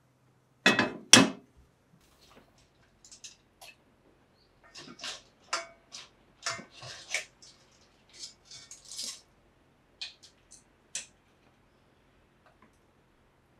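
Kitchen utensil clinking and scraping against a ceramic bowl and an enamel pot while food is dished out, with two sharp, louder clanks about a second in, then scattered light clinks and scrapes.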